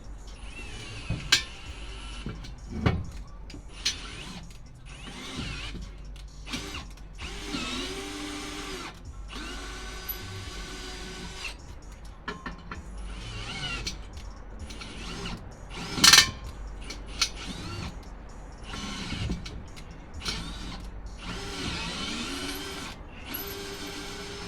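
Power drill run in repeated short trigger bursts, its motor winding up and down each time, with a few sharp knocks in between; the loudest knock comes about two thirds of the way through.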